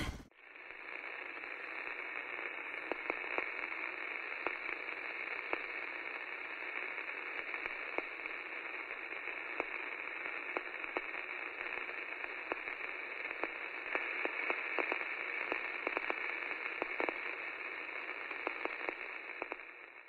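Steady, thin hiss of static with scattered crackles and clicks throughout, fading out near the end.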